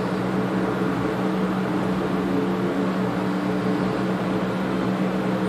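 Aquarium pump running with a steady hum over an even hiss of moving water and air.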